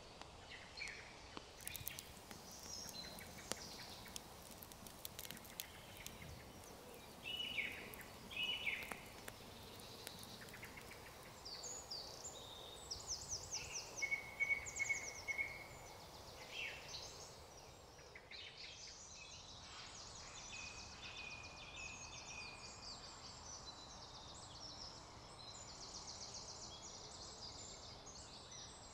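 Several woodland birds singing: scattered chirps and whistles, then rapid trilling songs over a faint steady hiss.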